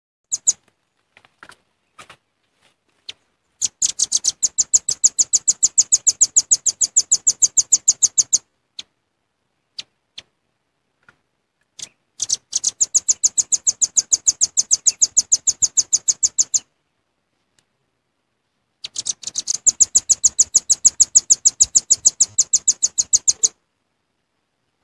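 Velvet-fronted nuthatch lure call: three long, rapid trills of repeated sharp, high notes, each lasting about four to five seconds, with a few single chips in the pauses between them.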